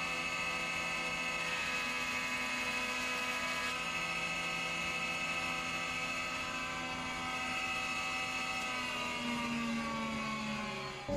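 Thicknesser running as Sapele boards are fed through it: a steady motor whine that slides down in pitch over the last two seconds.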